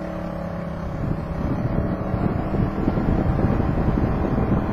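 Honda Helix scooter's 250cc single-cylinder engine running with a steady tone; about a second in, wind buffeting on the microphone rises and covers it.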